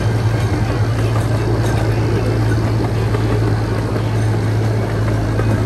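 Miniature park train running along the track, heard from an open passenger car: a loud, steady low engine drone over the rumble and rattle of the cars' wheels on the rails.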